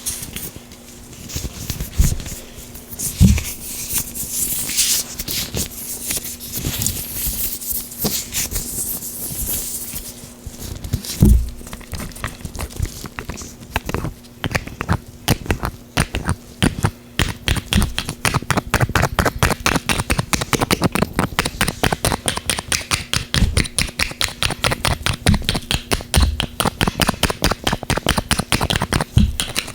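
Oiled gloved hands rubbing and working close to the microphone. First comes a rubbing hiss with a few low thumps, then from about twelve seconds in a fast, dense run of small clicks.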